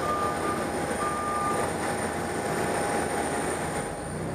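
Boeing 737-700 jet engines running at idle: a dense, steady rush with a constant whine. Two short beeps about a second apart sound in the first two seconds, and the noise eases slightly near the end.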